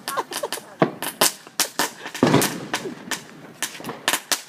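Consumer fireworks going off: a fast, irregular run of sharp pops and crackles, with a heavier bang about two seconds in.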